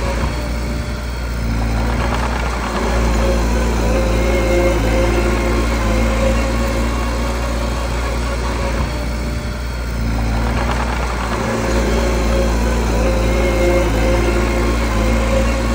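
Small bulldozer's diesel engine running steadily. Its note dips briefly twice, once about a second and a half in and again near ten seconds, then picks up again.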